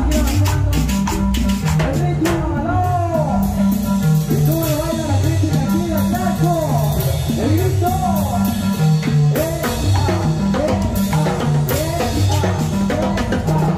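Live cumbia band music: a stepping bass line, steady drums and a high melody whose notes slide up and down in pitch.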